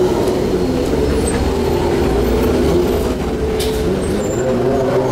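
Diesel city bus engine running as the bus moves off slowly, with a short hiss of air about three and a half seconds in.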